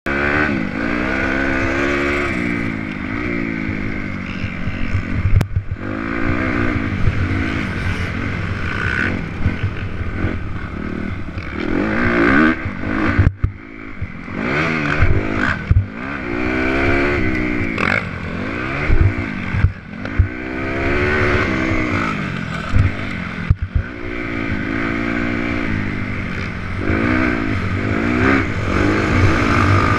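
Honda CRF250R's single-cylinder four-stroke engine being ridden on a dirt motocross track, revving up and dropping back over and over as the rider works the throttle and shifts, with scattered knocks and clatter from the bike.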